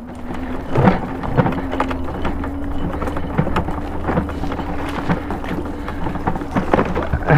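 Daymak electric bike riding over a rough grass-and-dirt trail: a steady electric motor whine with a constant low rumble, and frequent knocks and rattles as it jolts over bumps.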